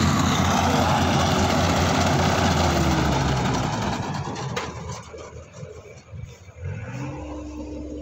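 Rice combine harvester's engine and threshing machinery running loud, then fading over about two seconds as it moves off. Near the end a second, steadier engine sound rises in pitch and settles.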